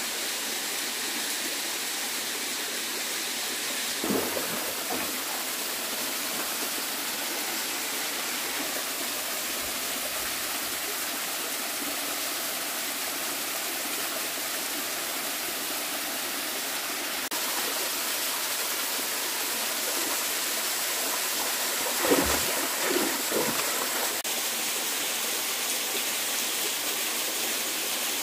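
Shallow forest stream running steadily, with a few brief louder sounds about four seconds in and again around twenty-two to twenty-three seconds in as the scoop net is handled in the water.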